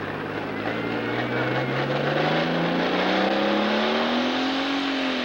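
Pro Stock pulling tractor's turbocharged diesel engine running hard down the track, its pitch climbing steadily for about four and a half seconds, then dipping slightly near the end.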